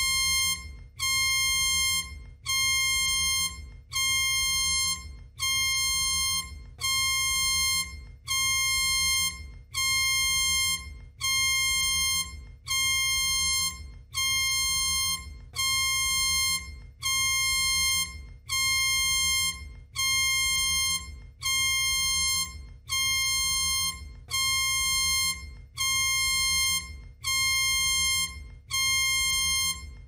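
Mock emergency alert system alarm: a synthesized electronic tone with many overtones, repeating about once a second. Each tone is held for nearly a second, then fades briefly, over a low steady drone.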